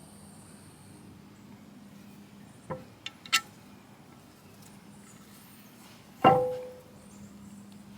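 Metal engine parts being handled: a few light clicks and clinks about three seconds in, then one loud metallic clank about six seconds in that rings on briefly as a part is set down.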